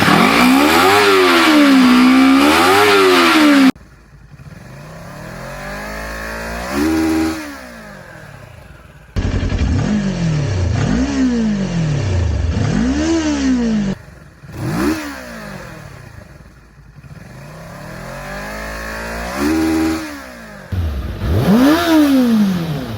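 Kawasaki Ninja motorcycle engines on stock exhausts being revved in place, a series of short clips of different bikes spliced together. Each clip holds one to four throttle blips, the engine note climbing and falling back. The clips change abruptly four times.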